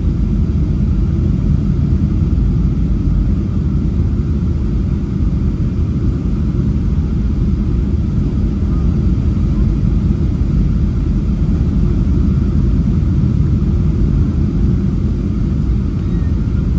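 Steady low rumble of a Boeing 737-800's CFM56 engines and rushing air, heard inside the passenger cabin during the descent to land.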